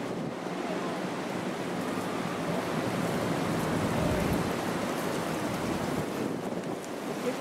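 Steady rushing background noise, like wind on the microphone, with a low rumble swelling about halfway through.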